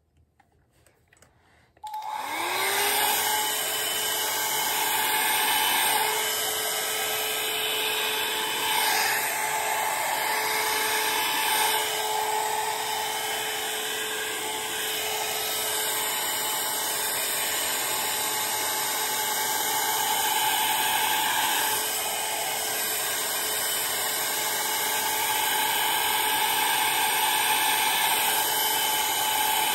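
Small handheld hair dryer switched on about two seconds in, its motor spinning up quickly and then blowing steadily.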